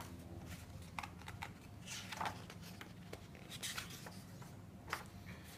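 Faint, scattered rustles and light taps of paper: the pages of a printed manual being handled and turned.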